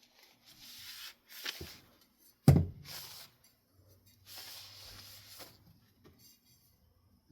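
Cleaning wipe rubbing over a ceiling fan's metal faceplate in several short strokes, with a sharp knock about two and a half seconds in.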